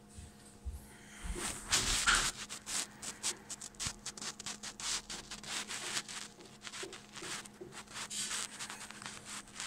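Hands handling a mobile phone close to the microphone: irregular rubbing and scratching with many quick clicks, starting about a second in.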